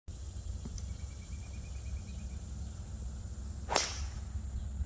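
A golf driver striking a ball off the tee: one sharp crack just under four seconds in.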